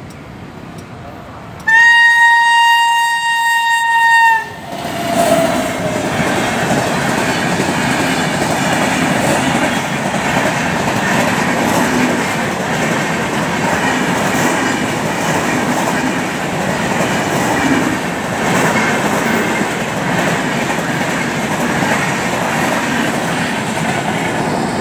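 Indian Railways electric locomotive's horn sounds one long steady blast starting about two seconds in and lasting about three seconds. The train then runs past close by at speed, with a steady rush and the clickety-clack of its coaches' wheels on the rails.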